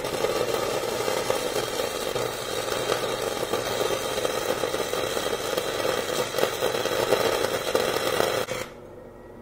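Electric arc welding on steel: the steady crackling sizzle of the welding arc laying a bead, starting abruptly and cutting off about eight and a half seconds in.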